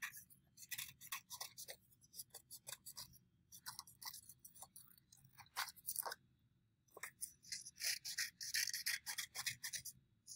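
Scissors cutting construction paper in quick repeated snips, with a short pause a little past halfway.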